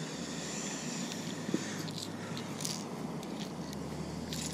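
Hands handling fishing tackle close to the microphone: faint rustling and a few small clicks over a steady background hiss.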